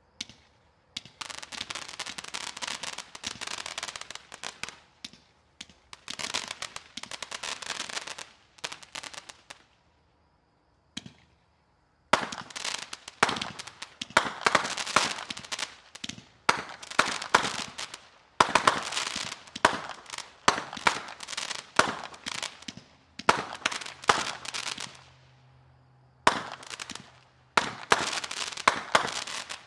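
A 500-gram consumer fireworks cake firing: rapid volleys of shots and pops in three long runs, broken by short pauses about ten seconds in and again near twenty-five seconds.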